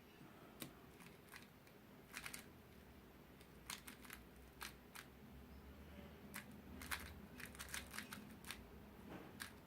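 Faint, irregular clicking of a mini 3x3 speed cube's plastic layers being turned quickly by hand during a solve, with short flurries of clicks, more of them in the second half.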